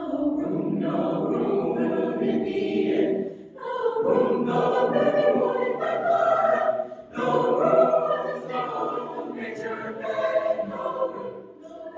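A choir singing in long held phrases, with short breaths between phrases about three and a half and seven seconds in.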